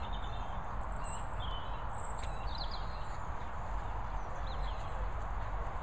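Wild birds chirping and twittering at intervals outdoors, with short high calls and quick downward-sweeping notes, over a steady low rumble.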